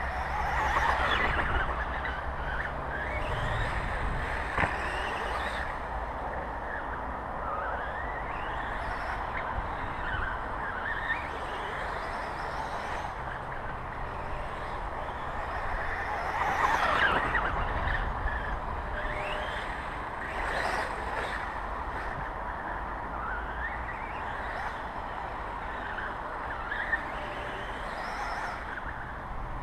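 Radio-controlled motocross bike's motor whining as it laps a dirt track, its pitch rising and falling with the throttle through corners and jumps. It is loudest twice, about a second in and again just past the middle, as it passes close by.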